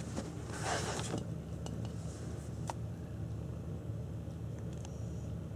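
A brief rustle about half a second in, then a few scattered light clicks and clinks, over a steady low hum, as a cat rubs against a wall clock. The clicks are irregular, not an even tick.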